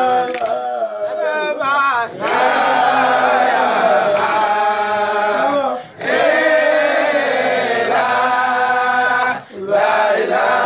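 Male voices chanting a Sufi zikr (dhikr) together in long sustained phrases, pausing briefly about two, six and nine and a half seconds in.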